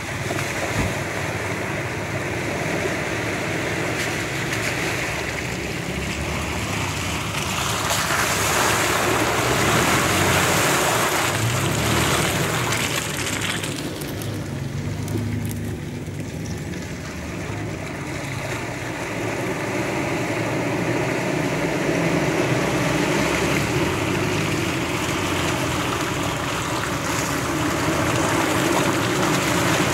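Off-road SUVs, a Toyota FJ Cruiser and then a Mitsubishi Pajero, driving through deep muddy puddles: engines running under load with water sloshing and splashing around the wheels. The noise swells as each vehicle pushes through the water.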